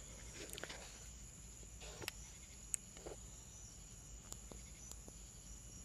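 Quiet room tone with a steady faint high-pitched whine and low hum, broken by a few faint small clicks and rustles, about five or six scattered ones.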